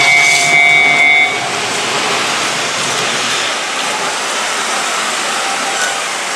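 Japanese level-crossing warning bell ringing, then cutting off about a second in, over the steady rushing noise of an electric train running past on the line.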